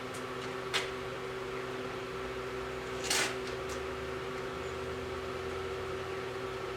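Steady electric motor hum from the cylindrical grinder, with two short knocks of handling, about one second and about three seconds in, the second louder.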